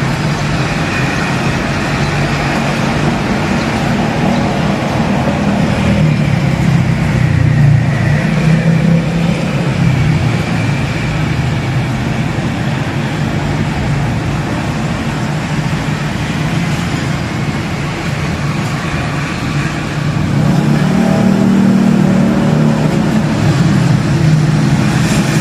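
Steady rumble of a motor vehicle engine running, growing louder about twenty seconds in.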